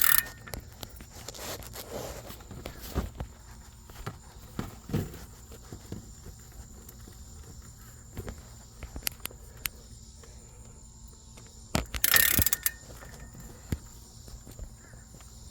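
Scattered clicks and knocks of a long hand bar working a lug nut to draw a wheel stud into the hub, with a louder scraping rustle about twelve seconds in. Crickets chirp steadily in the background.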